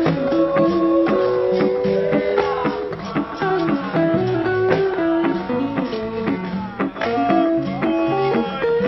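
Blues music: guitar playing a melody with some bent, gliding notes over a steady bass line.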